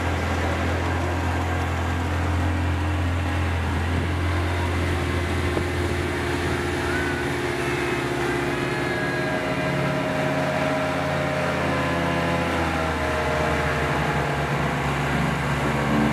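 Motorboat engine running steadily under way, a low hum with held tones, over water rushing and splashing against the hull.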